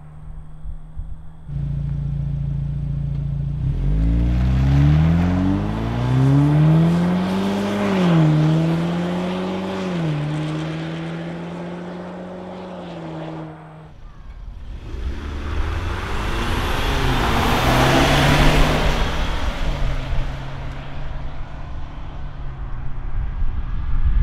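Ford Bronco's 2.3-litre EcoBoost four-cylinder through an RTR cat-back exhaust, accelerating hard: the exhaust note climbs in pitch and drops back at two upshifts, then holds steady. After a cut, a Bronco drives past, loudest about four seconds into the pass before fading.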